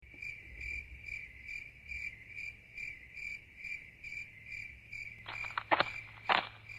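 Crickets chirping in a steady pulse, about two chirps a second. Footsteps join in a little past five seconds in.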